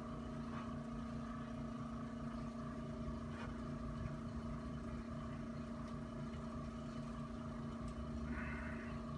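Steady low mechanical hum with a few faint clicks, and a brief soft rustle near the end.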